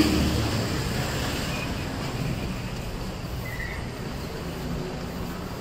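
City street traffic: a motor vehicle passes close by at the start and its engine noise fades away, leaving a steady hum of traffic.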